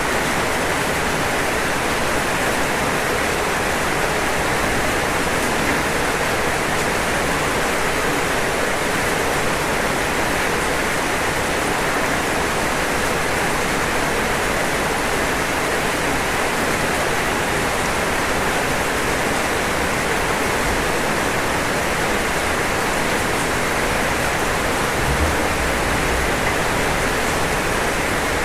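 Rain falling steadily on a roof: a dense, even hiss with no separate drops standing out. A brief low bump comes near the end.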